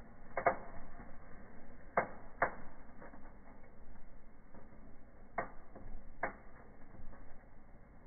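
Fireplace firework burning in an open fire, giving sharp single pops and crackles at uneven intervals: a close pair near the start, two more around two seconds in, and two after five seconds.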